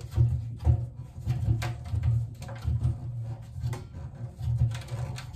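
White plastic drain fitting being screwed by hand onto a stainless sink's drain: irregular small clicks, knocks and rubbing of plastic threads and handling, several a second.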